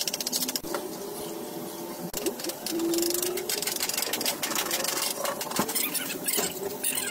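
A small machine running with a fast, steady clatter.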